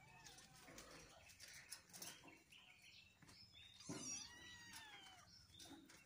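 Cat meowing: one clear, drawn-out meow about four seconds in, with a few faint short mews near the start. Soft scuffling and ticks from kittens playing.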